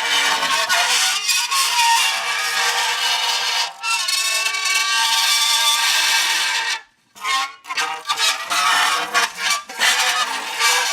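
Metal pressed against dry ice, squealing and screeching in many wavering pitches as the sublimating gas sets the metal vibrating. It breaks off briefly about two-thirds of the way through, then resumes.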